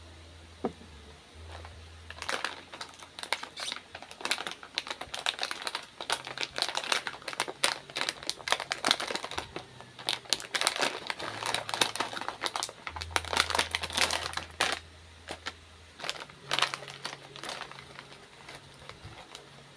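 Snack packaging crinkling and crackling as it is handled, in irregular runs of crackles with short pauses.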